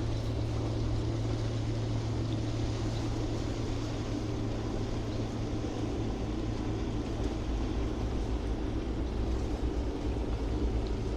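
Steady low drone of a boat engine out on the bay, over an even wash of sea and outdoor ambience.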